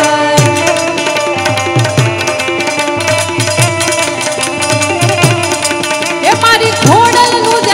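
Folk music passage: a harmonium holds steady chords over an even hand-drum beat, with small handheld clappers clicking along. A woman's singing voice comes in near the end.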